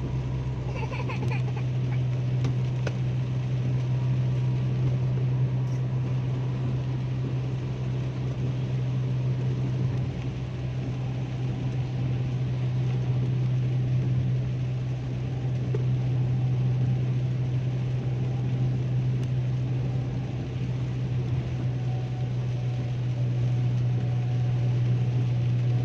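Inside a car driving fast on a motorway in heavy rain: a steady low drone from the engine and road, with an even hiss of rain and tyres on the wet road.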